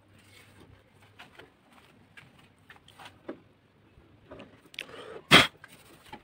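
Faint scattered scrapes and light taps of a hand on a worn wooden tabletop, with one sharp knock about five seconds in.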